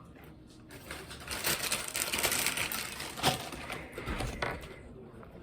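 Runny homemade slime being squished and kneaded by hand, giving a dense run of rapid wet clicks and pops from about a second in until near the end, with one louder pop in the middle.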